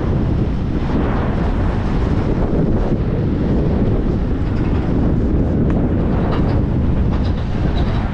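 Strong gusting wind buffeting the camera's microphone through its wind guard, a steady heavy rumble.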